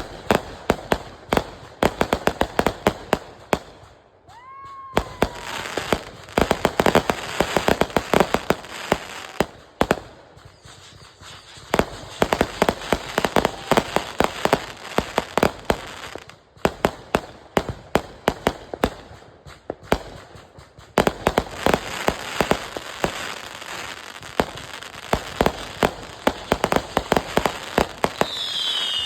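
Consumer firework cakes firing rapid volleys of sharp crackling reports in several long runs with brief pauses between them. A short falling whistle comes about five seconds in.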